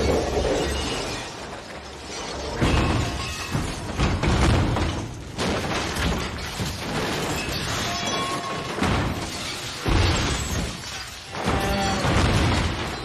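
A semi-truck's cab crashing and tumbling over on a road: a series of loud crashes of crunching metal and shattering glass, with debris clattering, over music.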